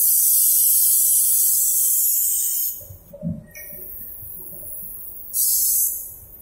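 Compressed-air hiss from an automatic spray-painting machine's spray gun, in two bursts: a long one that stops about three seconds in, then a short one near the end. A soft knock is heard between them.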